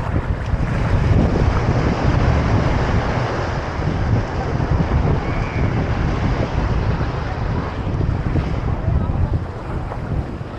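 Wind buffeting the microphone with a gusty low rumble, over a steady wash of ocean surf.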